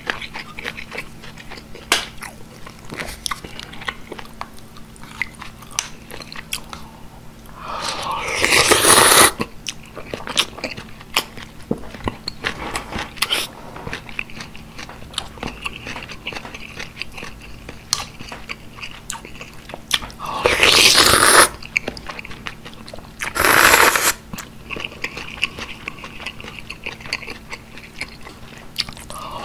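Close-miked eating of beef and pork soup with rice: steady soft wet chewing and mouth clicks, broken by loud slurps of broth from a wooden spoon, a long one about eight seconds in, two shorter ones about two-thirds of the way through, and another starting at the very end.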